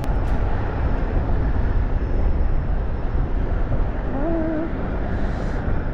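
Steady low rumbling noise with no clear rhythm, with a man's brief hum or murmur about four seconds in.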